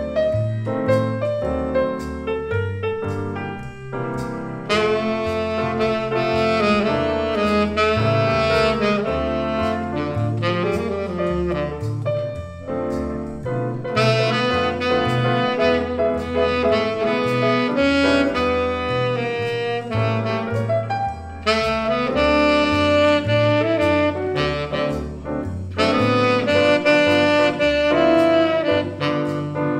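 Live jazz: a tenor saxophone plays melodic phrases over piano chords and a stepping bass line. The first few seconds are piano and bass alone; the saxophone comes in about four seconds in and plays in phrases with short breaths between them.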